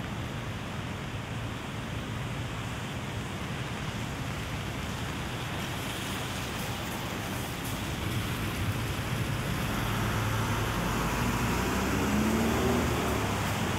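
Steady rain hiss on a city street, with a motor vehicle approaching and growing louder through the second half, its engine note gliding upward as it draws near close to the end.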